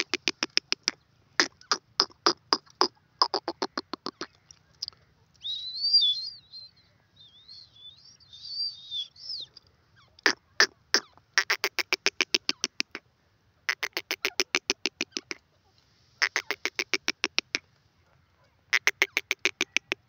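Grey francolin calling: repeated bursts of fast, harsh notes, about eight a second, each burst one to two seconds long with short gaps between. Near the middle, a higher, wavering squeaky call takes over for a few seconds before the fast bursts return.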